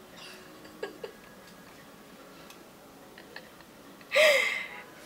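Quiet rustling and a few small clicks as a whipped-cream pie plate is pressed into a face, then about four seconds in a loud, short shrieking laugh.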